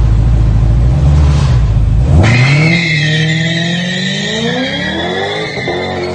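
Holden VF Commodore SSV's V8 engine running loud and steady for about two seconds, then accelerating hard, its pitch climbing steadily. A high steady whine sits on top during the acceleration.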